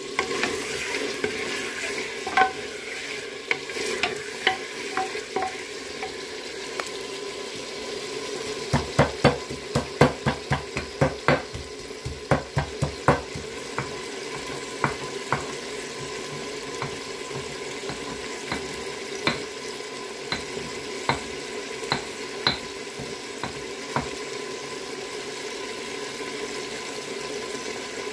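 Chicken pieces sizzling as they fry in oil in a clay pot, stirred with a wooden spoon that clicks and knocks against the pot. The knocks come fast and close together around the middle, then thin out to occasional taps over the steady sizzle.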